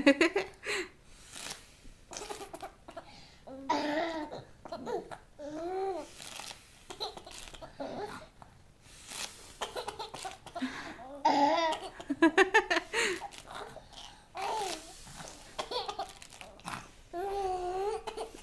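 A baby laughing and babbling in short spells, with gaps between.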